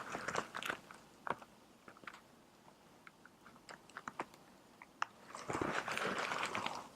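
Clip-on microphone rubbing against fabric clothing: scattered crackles and scratchy rustling, with a longer stretch of rustling about five and a half seconds in.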